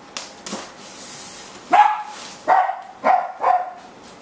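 Pet dog barking four times in quick succession, loud and sharp, in the second half.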